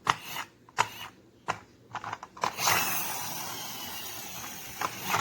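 Friction-powered toy race car: several sharp clicks as it is handled and pushed, then its flywheel whirring for a couple of seconds, slowly fading and dropping in pitch.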